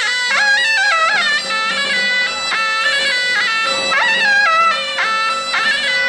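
Chinese shawm (suona) playing a sliding, bending melody over a steady held tone.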